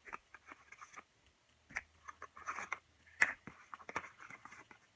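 Small paperboard box and paper inserts being handled and pulled apart: irregular crinkles, rustles and taps, the sharpest a little past three seconds in.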